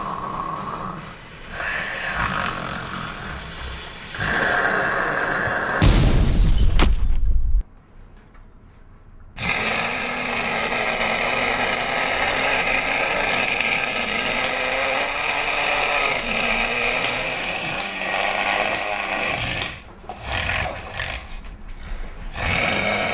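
Loud, exaggerated comic snoring noises in several spells: a very loud burst about six seconds in, a short lull, then a long steady noisy stretch of about ten seconds that breaks up into uneven snorts near the end.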